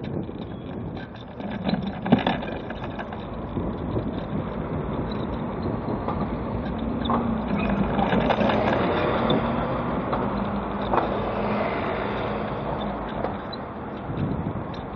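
Road traffic with a double-decker bus's diesel engine running close alongside, its hum building to the loudest point about halfway through and then fading. A sharp knock about two seconds in.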